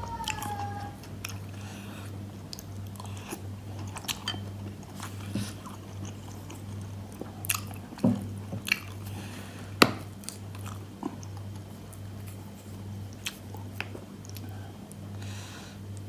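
A person chewing bakso meatballs and rice vermicelli close to the microphone, with scattered sharp clicks and smacks, over a steady low hum.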